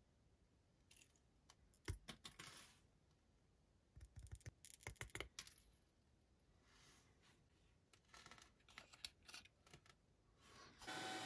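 Faint, scattered light clicks and rattles of a small piece of expanded metal mesh being handled and fitted into a black plastic part. They come in three short clusters.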